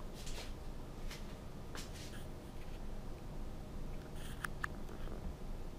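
Faint handling noises: a few soft rustles and scrapes, then two brief light clicks about four and a half seconds in, over quiet room tone.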